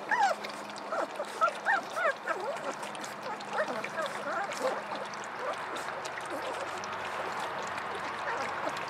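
A litter of Vizsla puppies lapping and slurping wet puppy mush from metal pans, with many short high squeaks and whimpers through the first half.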